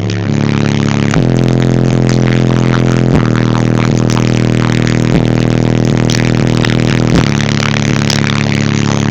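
Two 18-inch Incriminator Audio Death Penalty subwoofers playing very loud, deep bass notes that are held steady and change about every two seconds, with a rattly buzz over them.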